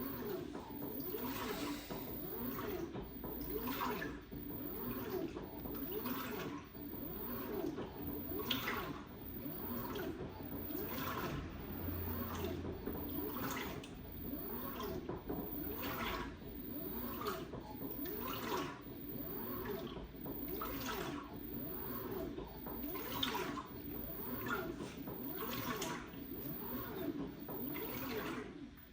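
LG WT16WV6 16 kg top-loading washing machine agitating a load of towels in water: sloshing and splashing, with a surge a little over a second apart as the wash action swings back and forth. It stops abruptly at the very end.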